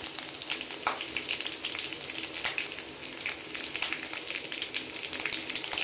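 Curry leaves with green and dried red chillies frying in hot mustard oil in a kadhai: a steady sizzle with scattered small pops and crackles, the tempering (tadka) stage of cooking.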